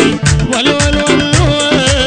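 Loud live Iraqi band music: a wavering melody line over a fast, steady drum beat and deep bass.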